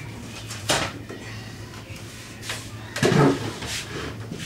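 Scattered knocks and rustles of a cardboard cake box and tableware being handled on a kitchen table, with a louder bump about three seconds in as the man gets up from the table. A steady low hum runs underneath.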